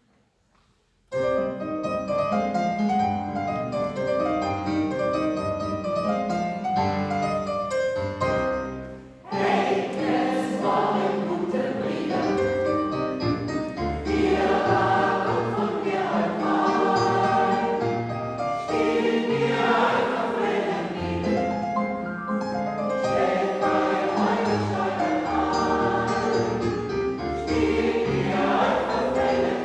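Choir singing. The music starts abruptly about a second in, dips briefly at about nine seconds, then comes back fuller and louder.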